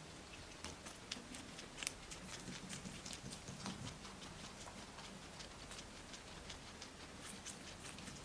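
Guinea pigs chewing fresh cucumber: faint, irregular little crunching clicks, several a second.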